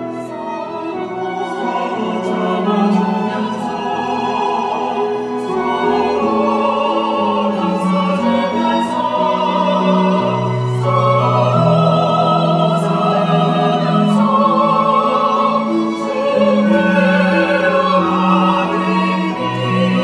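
A small mixed vocal ensemble of men and women singing a hymn in a classical style with vibrato, accompanied by a string ensemble of violins and cello. The singing is continuous, with held notes over a steady bass line.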